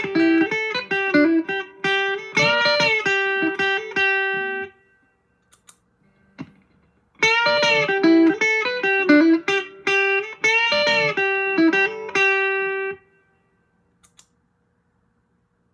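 Electric guitar played through a Vox AC10 amp: a short phrase of ringing notes, a pause of a couple of seconds, then a similar phrase again.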